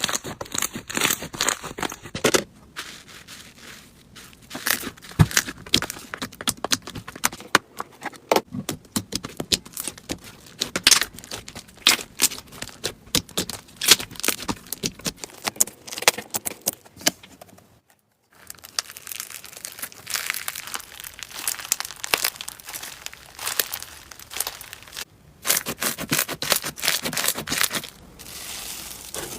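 Hands squeezing, folding and poking slime: a dense run of crackling pops and sharp clicks, with a brief silence about 18 seconds in.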